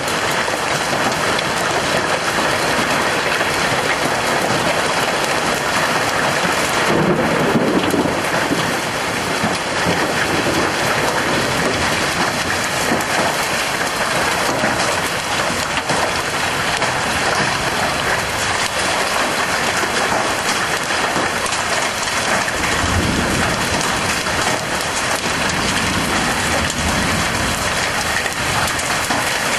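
Hailstorm: hail and heavy rain beating down in a dense, steady clatter. Low rumbles come about seven seconds in and again for a few seconds past the twenty-second mark.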